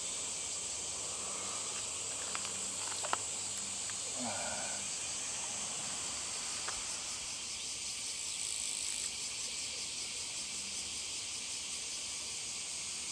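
Steady, high-pitched drone of summer insects, with a few faint clicks about two to three seconds in.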